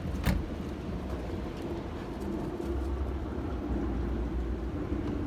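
A vehicle engine rumbling low and steady with a faint steady hum, and a single short knock about a third of a second in.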